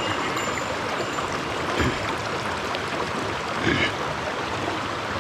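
Small mountain stream running steadily over rocks, with two brief faint sounds about two seconds and four seconds in.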